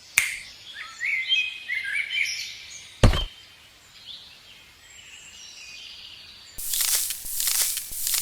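Birds chirping in short gliding calls, with a sharp knock about three seconds in. Near the end comes a run of loud scraping or crunching noise.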